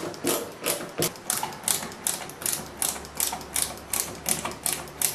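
A ratcheting tool clicking evenly, about four clicks a second, as a screw is driven in for a towel rack; the screw is going in easily. A faint low hum joins in about halfway through.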